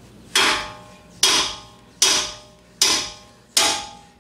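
Five hammer blows, about one every 0.8 s, each with a short metallic ring, on the nut threaded flush onto a car's lower ball joint stud. The blows are driving the stud out of the steering knuckle, with the nut there to protect the threads.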